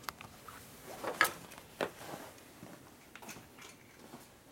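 A few light knocks and clatters of items being handled and set down on a metal workbench, the loudest about a second in and another just before two seconds.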